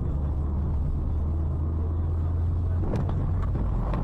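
Steady low rumble of a car driving along a road, the engine and tyre noise heard from inside the moving vehicle, with a few faint clicks about three seconds in.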